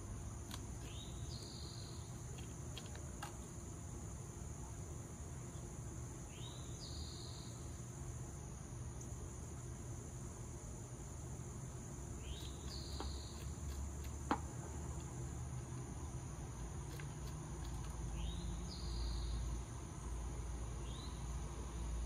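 Steady high-pitched insect chorus, with a bird giving a short rising call about every six seconds, five times in all. A low rumble grows louder in the second half, and there is one sharp click about fourteen seconds in.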